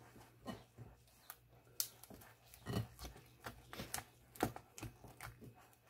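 Thick chocolate frosting being stirred by hand with a small spoon in a mixing bowl: soft, irregular scraping and slapping sounds, several a second.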